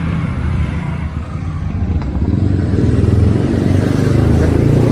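A motor vehicle's engine running, growing louder over the first three seconds and then holding steady.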